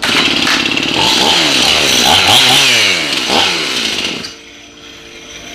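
Stihl MS 271 two-stroke chainsaw running after a no-start repair (carburetor cleaned, ignition coil re-gapped), revved up and down several times, then dropping back to a much lower level about four seconds in.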